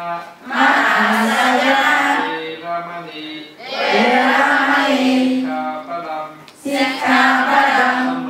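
Group of Buddhist nuns chanting together in unison, in melodic phrases of a few seconds with brief pauses between.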